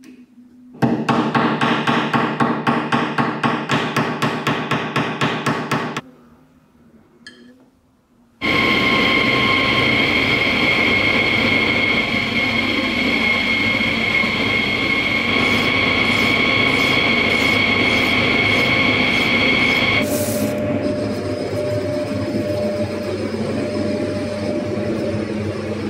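Metal lathe running and turning a metal rod with a carbide-insert tool: a steady machine noise with a constant high whine and cutting noise, which changes about 20 s in as the cut changes. Before the lathe starts there is a fast, even rhythmic rattle of sharp strokes lasting about five seconds, then a short pause.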